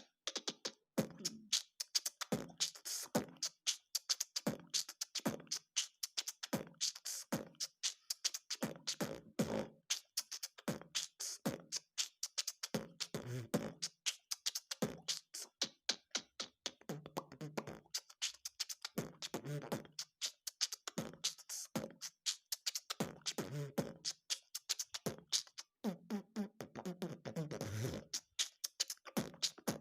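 Vocal beatboxing: a man imitating a hip-hop beat with his mouth, a fast rhythmic run of clicks and hissed hi-hat sounds over recurring low kick-drum sounds.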